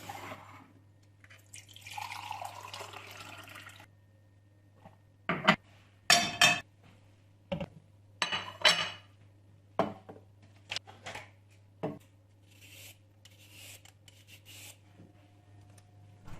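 Kitchen handling sounds: dishes, glass and cutlery clinking and knocking, a dozen or so sharp clinks, after a few seconds of water near the start.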